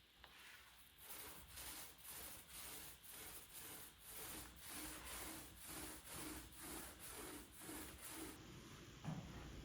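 Hand sanding wood with back-and-forth strokes, about two a second, stopping about eight seconds in.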